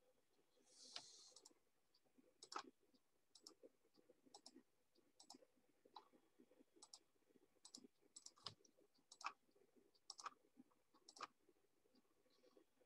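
Near silence on a video call line, with faint, irregular clicks roughly once a second and a short hiss about a second in.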